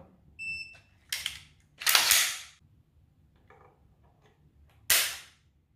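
A digital force gauge beeps once, followed by a brief clatter of the rifle being handled. Just before the end, the CZ BREN 2's two-stage trigger breaks with a sharp dry-fire snap as the gauge pulls it during a trigger pull weight measurement.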